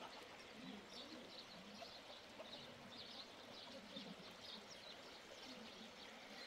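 Faint birds calling: short high chirps repeating a couple of times a second, with some faint low calls beneath, over quiet outdoor background hiss.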